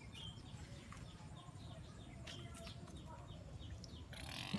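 Faint birds chirping: short, high, falling chirps repeated every fraction of a second, with a brief rustle near the end.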